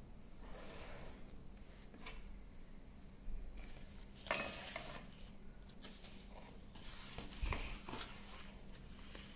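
Desk handling while drawing: a marker scraping along a steel ruler, then one sharp metallic tap as the ruler is set down, then paper rustling as a sheet is lifted near the end.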